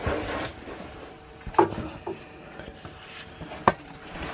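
Handling and workshop clatter: a short scraping rustle, then a few sharp knocks, the loudest near the end, as of steel spreader plates and tools being picked up and set down.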